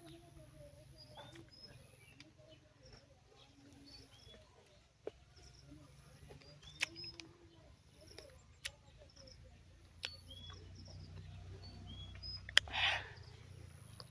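Birds chirping outdoors, many short repeated calls, over a low steady rumble of wind. A few sharp clicks are scattered through, and a brief rustle comes near the end.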